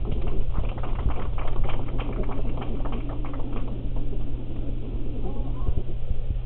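Scattered applause from a small group of diners, handclaps dense for the first three seconds or so and then thinning out, over a steady low hum.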